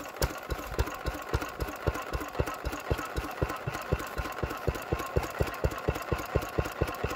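Vintage single-cylinder stationary engine, just hand-started, running steadily at idle with a fast, even beat of firing strokes.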